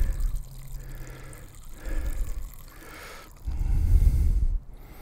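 Water trickling from the opened valve of a bee waterer into its charcoal filling. Low rumbling bursts cut across it, the loudest lasting about a second, some three and a half seconds in.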